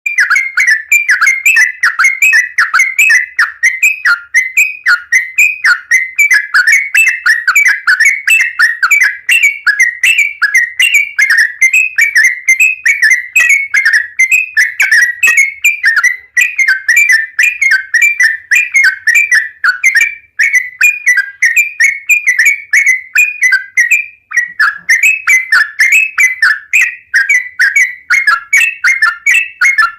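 Yellow-vented bulbul singing nonstop in a rapid, chattering run of loud whistled notes, about four a second, with a brief pause about 24 seconds in.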